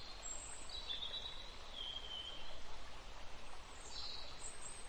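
Faint natural ambience: a soft steady hiss with a few high, thin bird calls now and then.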